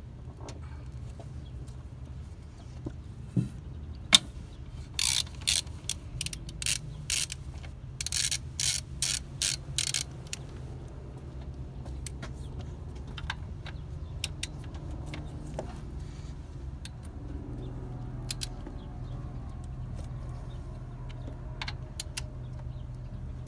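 Hand ratchet working loose the alternator mounting bolts: a run of about a dozen loud ratcheting clacks, one for each stroke of the handle, between about five and ten seconds in, then scattered fainter clicks. A steady low hum runs underneath.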